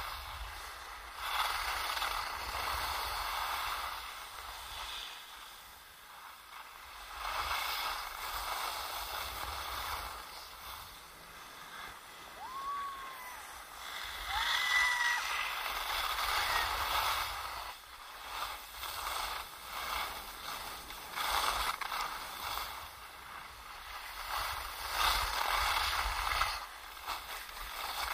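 Skis scraping and carving on hard-packed snow, the swish swelling and fading every few seconds, with wind rumbling on the camera microphone.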